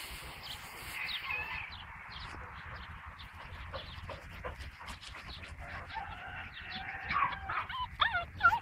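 Border Collie puppies whining and yipping: short, high cries that rise and fall in pitch, scattered at first and then louder and more frequent near the end as a puppy comes up close.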